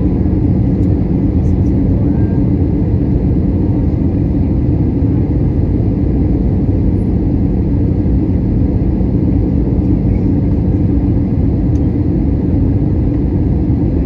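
Airbus A320 cabin noise in flight: a steady rumble of the jet engines and airflow over the fuselage, with a low hum, heard from a window seat over the wing.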